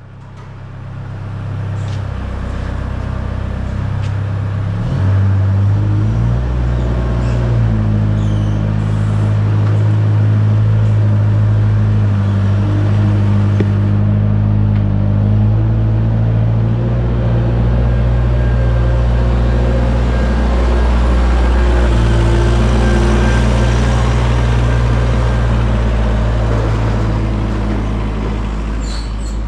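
Caterpillar 903C wheel loader's diesel engine running after a new head gasket, a steady low drone that shifts engine speed about five to seven seconds in, then holds steady.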